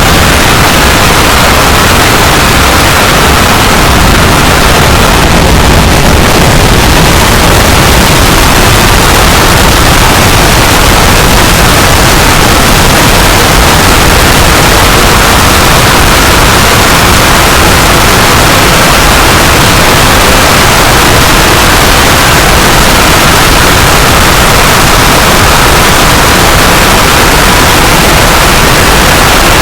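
Loud, steady static-like noise spread across all pitches, with no tone or rhythm, at a constant level.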